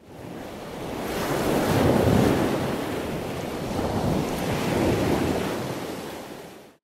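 Rushing noise of surf, as in an ocean-wave sound effect, swelling twice like two waves washing in and fading out near the end.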